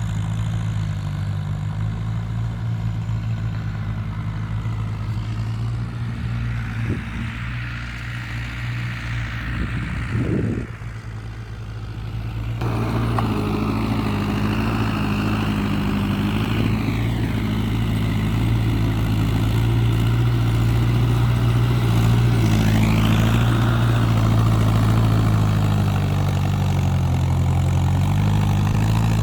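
International IH276 tractor's diesel engine running steadily while it drives a rotary tiller through a paddy field; the engine sound gets a little louder and fuller about twelve seconds in.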